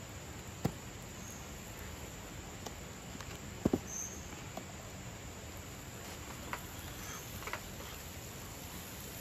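A fork clicking and scraping against a plastic bowl as food is pushed out of it, with two sharp knocks close together about a third of the way in. A few lighter ticks of utensils follow later, over a steady hiss.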